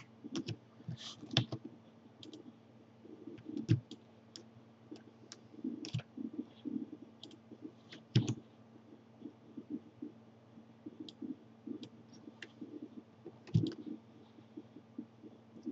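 Irregular clicks of a computer mouse, a few of them louder, over a faint steady low hum.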